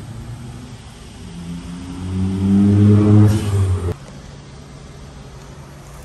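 A motor vehicle's engine going by, building up and rising slowly in pitch as it accelerates. It is loudest around three seconds in and cuts off abruptly about four seconds in.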